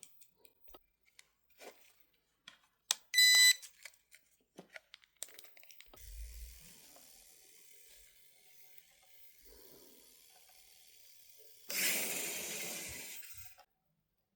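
A short, high electronic beep about three seconds in, amid light handling clicks and taps. A faint hiss follows, then a louder rush of noise near the end.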